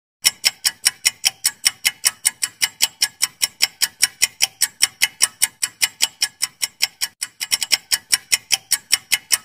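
Countdown timer's ticking sound effect, crisp clock-like ticks at about four to five a second, starting just after a moment of silence and briefly coming closer together about seven and a half seconds in.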